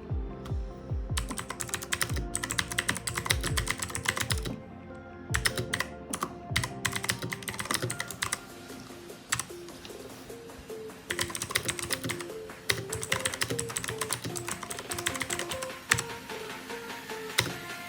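Fast typing on a MageGee mechanical keyboard with clicky blue switches: rapid runs of sharp key clicks in bursts with short pauses between them.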